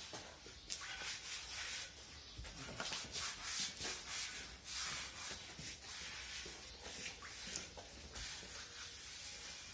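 Faint, irregular scraping and rubbing with a few light clicks, from steel pry bars working a truck tire's bead against the rim.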